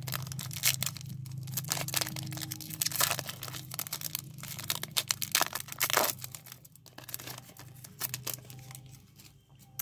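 Foil wrapper of an Upper Deck Allure hockey card pack being torn open by hand, crinkling and crackling irregularly, with sharper crackles now and then, and tapering off near the end. A low steady hum lies underneath.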